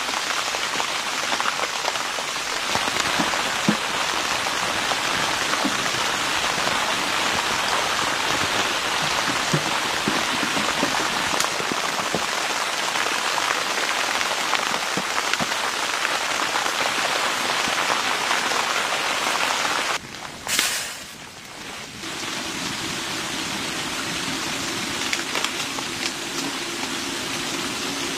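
Dense, steady pattering hiss of precipitation driving on a surface, heard like rain. It cuts off suddenly about 20 seconds in, followed by a brief burst. A quieter hiss with a low steady hum then runs through the end.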